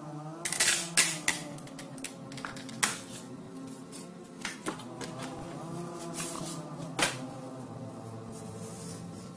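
Stiff paper leaflets and an instruction manual being handled and flipped, giving sharp rustles and snaps, loudest in a cluster about half a second in and again near the 3 and 7 second marks, over background music.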